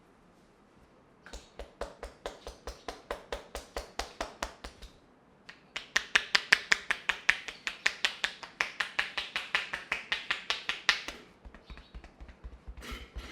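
A fast, even series of sharp clicks or taps, several a second, in runs of a few seconds each; the middle run is the loudest.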